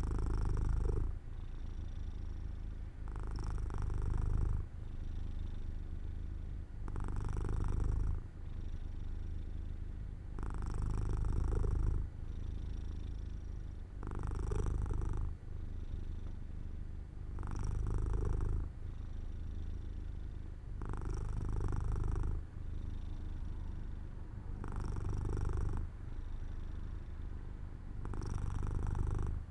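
Domestic cat purring while drowsing, a steady low rumble that swells louder about every three and a half seconds with each breath.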